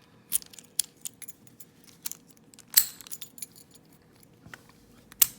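Light metallic clicks and rattles as a Master Lock No. 29 padlock and its key are handled. One loud click comes about midway. The loudest, a sharp snap near the end, is the shackle springing open under its strong spring.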